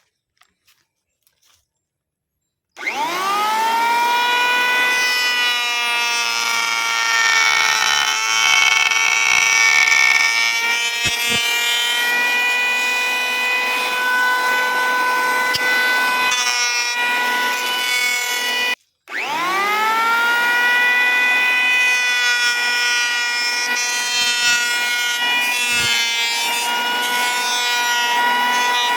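An electric power tool working wood: its motor spins up with a rising whine, then runs steadily with rougher stretches where it bites into the wood. About two-thirds through it stops for a moment, spins up again and runs on, winding down at the very end.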